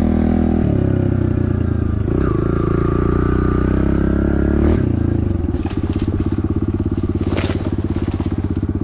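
Small Kawasaki KLX110L pit bike engine revving under throttle while being ridden. It eases off just after a second in, pulls again from about two seconds to nearly five, then drops to a low, evenly pulsing run. A few short knocks or scrapes come in the second half.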